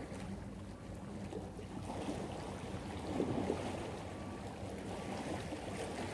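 Small waves washing against breakwater rocks, with a faint steady low hum underneath. The wash swells briefly about three seconds in.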